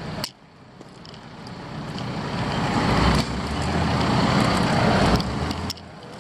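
A heavy motor vehicle's engine growing steadily louder as it comes close, then dropping away abruptly about a second before the end.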